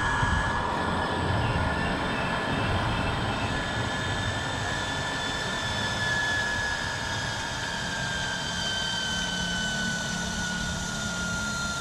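Rheken inverter booster water pump running: a low rumble with a high whine that holds steady, then slowly drops in pitch through the second half as the inverter slows the motor down on reaching the set pressure, shortly before the pump shuts off.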